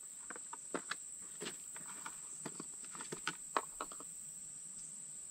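Insects trilling in a steady high-pitched drone, with scattered light clicks and taps from hands working in a plastic tackle box, the sharpest about three and a half seconds in.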